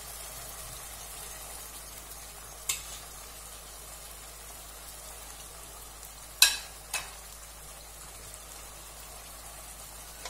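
Onion-tomato masala sizzling steadily in a non-stick kadai over a gas flame, with three sharp clinks of a utensil against the pan, the loudest about six and a half seconds in.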